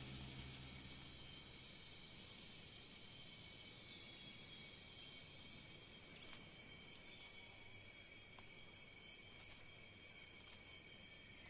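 Steady, high-pitched insect chorus, a continuous trill with a few short chirps over it.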